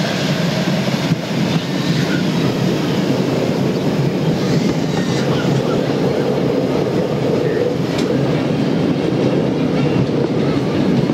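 Ride-on miniature railway passenger cars running along the track, heard from aboard: a steady rumble of the wheels on the rails, with a sharp click about eight seconds in.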